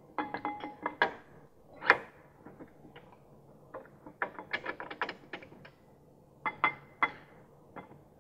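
Metal clinks and taps as an AP Racing brake caliper and its mounting bolts are handled and fitted against the rotor and bracket: a short ringing clink at the start, a sharp knock about two seconds in, and clusters of small clicks later.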